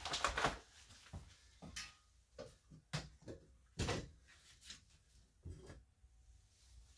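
Metal engine parts knocking and clanking as a hand rummages through a plastic storage tote: a handful of separate knocks, the loudest about four seconds in.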